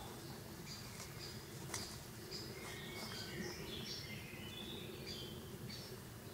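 Small birds chirping and singing, many short high notes overlapping, busiest in the middle, over a quiet low outdoor hum.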